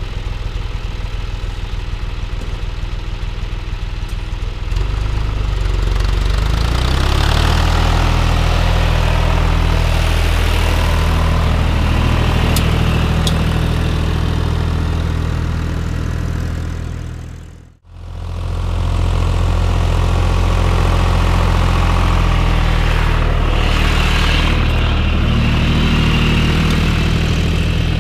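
Tractor diesel engine running steadily while ploughing. About four and a half seconds in it grows louder and heavier. Just after the middle the sound fades out for a moment and comes straight back in.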